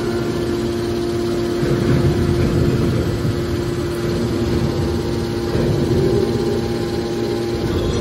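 Hydraulic scrap metal baler's power unit, electric motors driving the hydraulic pumps, running with a steady hum and whine.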